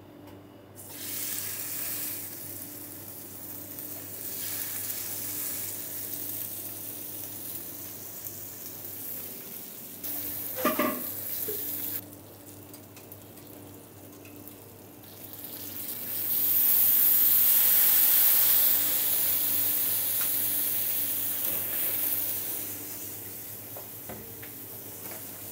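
Duck breasts sizzling in a hot stainless steel frying pan. Past the middle, cognac is added and flamed, and the sizzle swells into a much louder hiss for several seconds before easing back down.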